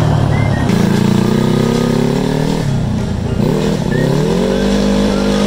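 The engine of a homemade off-road reverse trike revving up as it accelerates and holding its pitch. About halfway through it eases off briefly, then climbs again and holds.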